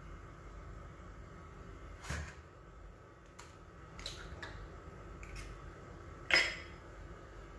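An egg being cracked on the rim of a stainless steel mixing bowl: several short, sharp taps and shell cracks, the loudest a little after six seconds in.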